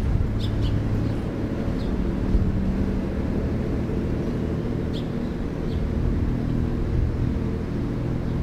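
Steady low diesel engine drone of the approaching car ferry Ishitegawa, carried across the harbour water. A few brief high chirps sound near the start and again about five seconds in.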